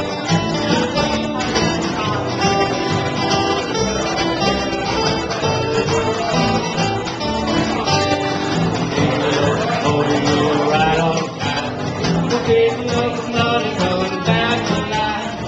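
Jug band playing a song live, with the music running steadily throughout.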